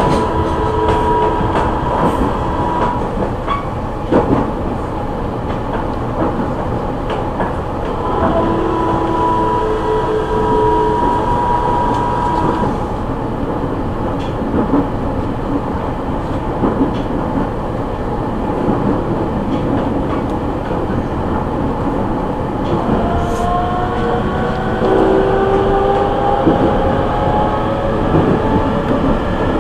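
JR East E501 series electric train heard from inside a motor car: steady wheel-on-rail running noise with occasional knocks. The Siemens GTO VVVF inverter and traction motors whine at steady pitches near the start and again around a third of the way in, fall silent for a stretch, then rise in pitch over the last several seconds as the train picks up power.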